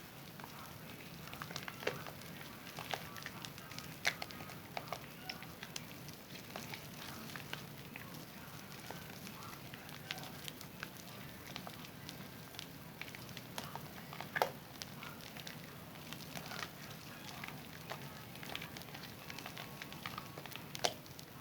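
Wet hands lathering a bar of Zest soap: irregular small wet clicks and pops over a steady soft hiss, with a few louder clicks about 4 and 14 seconds in.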